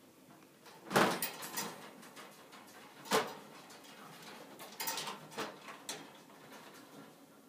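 Wire cat cage knocking and rattling as kittens climb the bars and scuffle on the shelf: a loud knock about a second in, another near three seconds, and a run of smaller clatters around five to six seconds.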